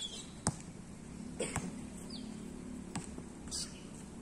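A basketball bouncing on a court in a few sharp knocks, the loudest about half a second in and others near one and a half and three seconds, with birds chirping in the background.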